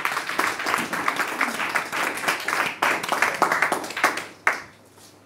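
Small audience applauding, thinning out and dying away about four and a half seconds in.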